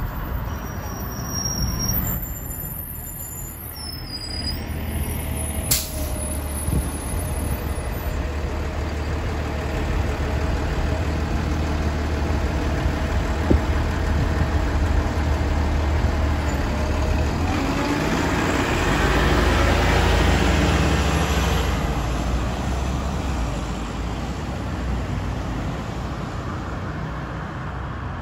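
City transit bus pulling up and standing at a stop, its engine running with a steady low hum. About eighteen seconds in it accelerates away, the engine noise swelling for a few seconds and then fading.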